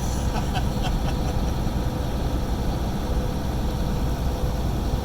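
Steady low rumble of a semi truck's engine and road noise while it drives along the highway, heard from inside the cab, with a faint steady hum over it.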